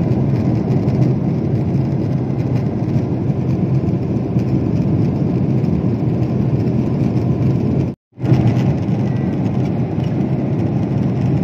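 Steady cabin noise of a jet airliner in cruise, the engine and airflow noise heard from a window seat; it cuts out for a moment about eight seconds in, then carries on.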